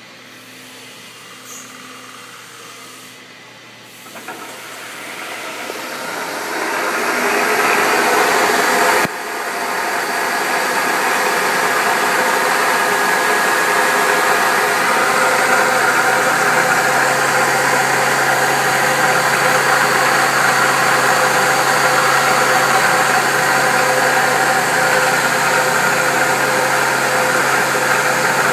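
CNC mill thread-milling a 1/4 NPT thread: a machine noise with steady whining tones swells over a few seconds about four seconds in. It dips sharply near nine seconds, then holds steady and loud.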